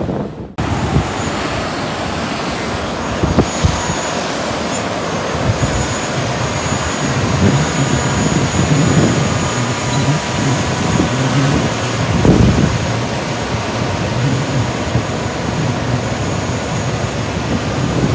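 Strong wind buffeting the microphone in gusts, with surf behind it.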